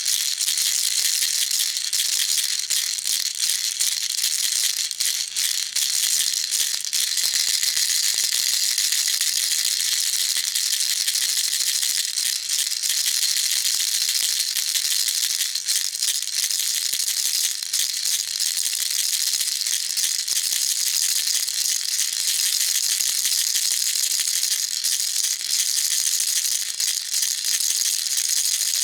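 Baby rattle shaken continuously: a dense, steady, high-pitched rattling of many small beads.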